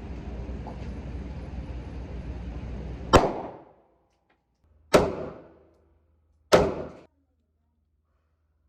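Steady background rumble, then three loud single gunshots at an indoor range, about a second and a half to two seconds apart, each with a short dying echo.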